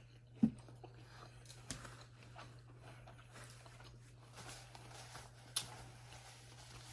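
Close-miked chewing of a mouthful of food, wet and crackly, with a few sharp clicks, over a steady low hum.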